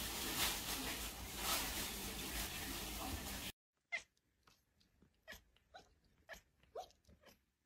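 A steady noisy rustle for the first three and a half seconds, then a white cat giving a series of short, quiet meows, about eight in three seconds.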